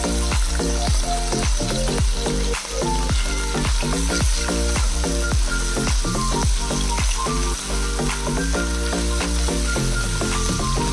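Minced meat sizzling as it fries in oil in a wok, with a spatula scraping and knocking against the pan as it is stirred. Background music with a steady beat plays along with it.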